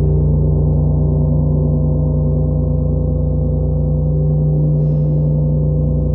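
A 50-inch Oetken Sound Creation gong droning under a friction mallet: a steady, rough low hum with many overtones layered above it and no struck attacks. A brief brighter rasp rises over the hum about five seconds in.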